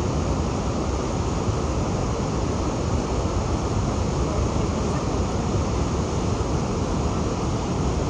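Steady rush of fast-flowing Niagara River water, a constant low-heavy noise with no let-up.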